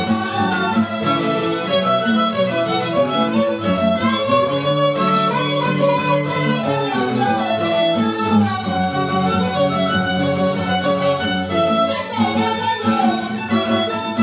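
Live string band music: two violins playing the melody over strummed guitars and a mandolin, a steady ensemble throughout.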